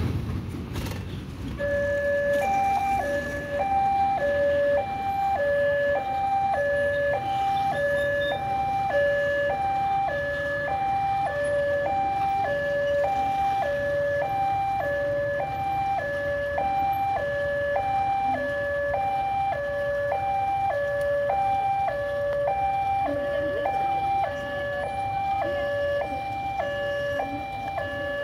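Railway level-crossing warning alarm sounding a two-tone electronic signal that alternates between a lower and a higher pitch about once a second, starting about two seconds in: the crossing is closed for an approaching train. Idling traffic and motorcycles underneath.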